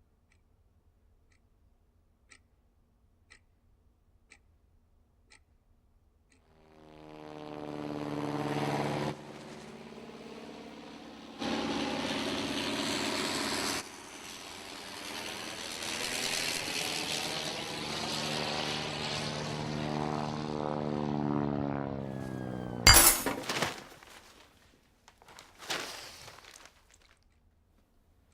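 A clock ticking softly about once a second, then a steady low droning tone that swells in and shifts in level a few times, ending in a sudden loud crash with clinking and a smaller crash a few seconds later.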